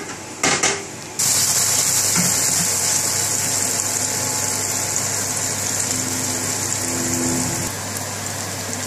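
Chopped onions frying in oil in a pan, a steady sizzle that starts abruptly about a second in, after a couple of short knocks.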